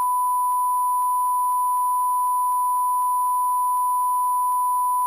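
A single high, pure beep tone held without a break: a censor bleep laid over a spoken name.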